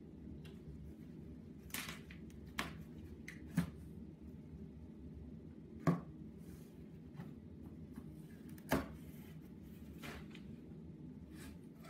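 Cardboard shipping box being cut open and handled: scattered sharp knocks and scrapes of the cardboard, about six of them, the loudest about halfway through and again about three-quarters through, over a steady low hum.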